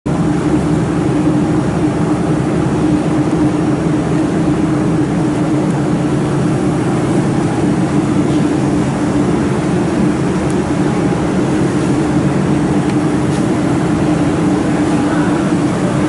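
Steady machine drone: a constant hum with one strong low tone, unchanging throughout, with a couple of faint ticks in the second half.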